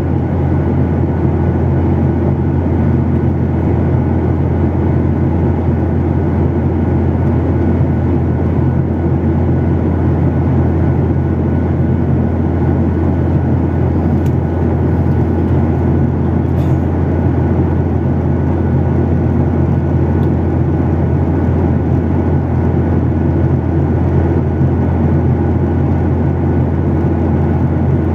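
Jet airliner cabin noise at cruise, heard inside the cabin beside the wing-mounted turbofan engine: a loud, steady, deep drone of engine and rushing air that does not change.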